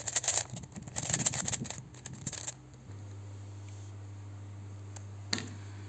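A plastic 3x3 speed cube, a 2014 Shengshou, being turned quickly by hand: a rapid clatter of clicking layer turns that stops after about two and a half seconds. A low steady hum is left behind, with one more click near the end.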